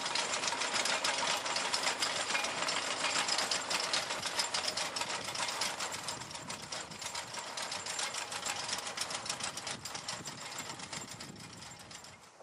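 Old tractor engine running while the potato digger it pulls clatters, its grate and chain rattling in a rapid, continuous stream of ticks. The sound fades away over the last few seconds.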